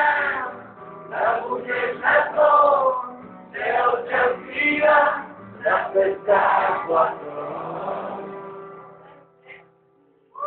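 A crowd singing a chant together in short, loud phrases with brief gaps between them, then holding one long last note that fades away near the end.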